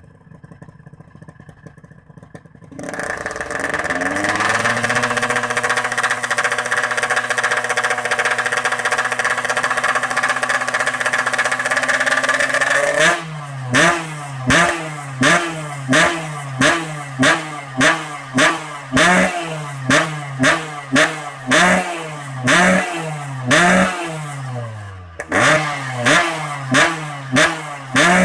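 Motorcycle engine through a stock-look 'standar beset' aftermarket exhaust (type PK1) in a sound check: it idles quietly, revs up about three seconds in and holds a steady high rev for about ten seconds, then gives a long run of quick throttle blips about once a second, with a short pause near the end.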